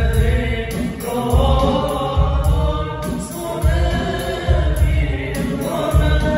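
A group of voices singing an Islamic devotional song (sholawat) over a steady deep drum beat.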